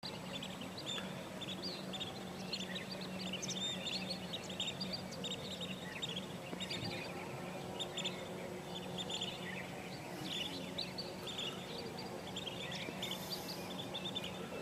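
A flock of birds calling at once: a dense, overlapping chatter of short, high chirps, over a steady low hum.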